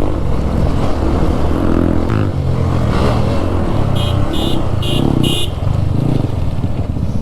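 A single-cylinder motorcycle engine running on an off-road trail, its note swelling and easing in turn as the throttle is worked. Four short high-pitched sounds come in quick succession about four to five and a half seconds in.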